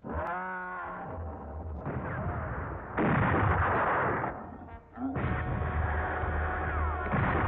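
Western film soundtrack of a gunfight on horseback: dense gunfire and galloping hoofbeats, after a brief wavering cry at the start. The din dips briefly a little before the end.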